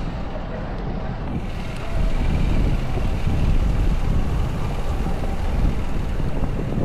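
City street traffic, with wind buffeting the microphone in a low rumble that gets louder about two seconds in.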